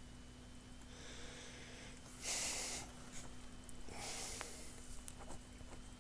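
A man breathing out twice, close to the microphone: a noisy puff about two seconds in and another about four seconds in. Under it is a steady electrical hum, with a few faint mouse clicks.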